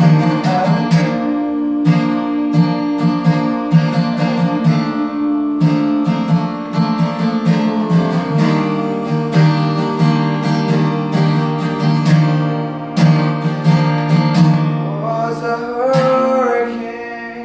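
Steel-string acoustic guitar strummed in a steady rhythm, with a man singing over it. Near the end the strumming stops and the last chord dies away, closing the song.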